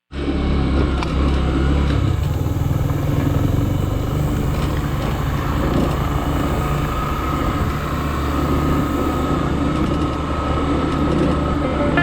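A motor vehicle's engine running steadily, with a faint high whine joining about halfway through.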